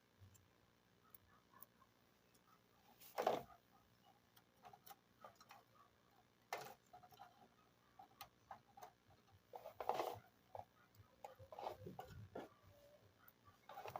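Small plastic toy pieces being handled: scattered light clicks and taps, with a few louder brief knocks or rustles about three, six and ten seconds in.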